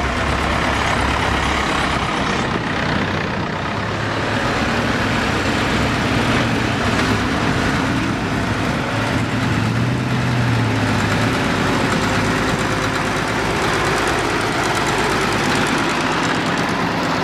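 Old tractor engines running as a line of vintage tractors drives past, pulling up a slope: a steady low engine note that swells about halfway through as one tractor comes close.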